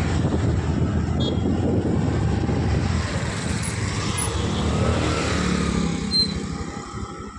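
Honda Activa scooter ridden slowly through street traffic: wind rumble on the camera microphone over the scooter's engine and a passing motorcycle. It grows quieter near the end as the scooter slows.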